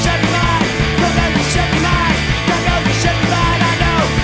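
A three-piece indie rock band playing a song: electric guitar, bass guitar and drums, with cymbals struck in a steady beat.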